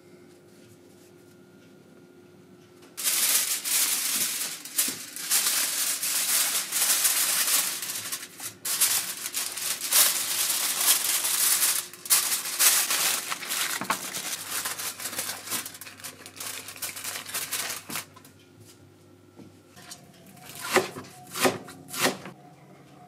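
Aluminium foil crinkling loudly as it is folded and crimped shut into a foil parcel, starting a few seconds in and stopping about 18 s in. Near the end come a few sharp knife chops through green onions on a cutting board.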